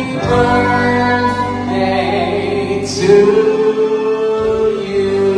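Live music with singing: voices hold long, steady notes over a band, getting louder a little past halfway.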